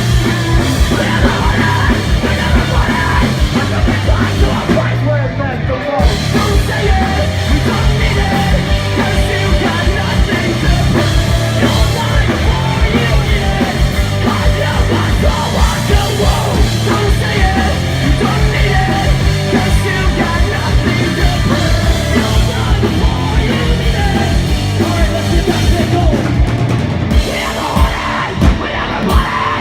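Live punk rock band playing loud and fast: distorted guitars, bass and pounding drum kit, with shouted vocals, recorded from the crowd.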